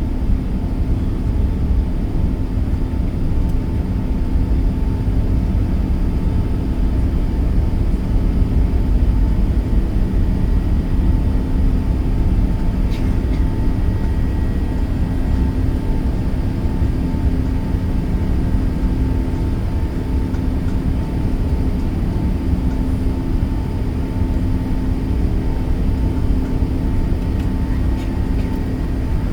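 Steady cabin noise of an Emirates Airbus A380 in flight: a continuous low rumble of engines and airflow, with a faint steady hum. Two faint clicks come about halfway and near the end.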